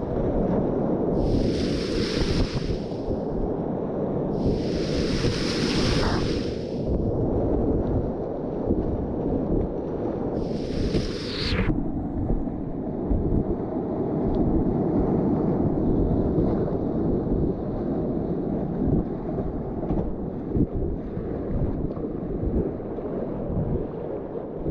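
Rushing whitewater of a river rapid, with wind buffeting the microphone. Three loud hissing splashes of water come in the first half, each swelling for a second or two; the last cuts off suddenly.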